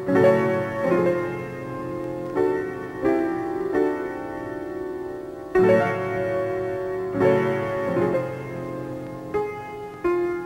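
Slow piano music on a cartoon soundtrack: chords struck about once a second and left to ring and fade.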